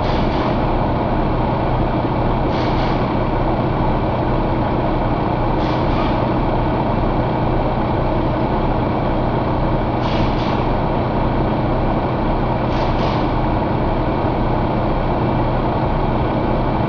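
Paccar MX13 inline-six diesel engine idling steadily, heard up close in the open engine bay, with short clusters of clicks every few seconds.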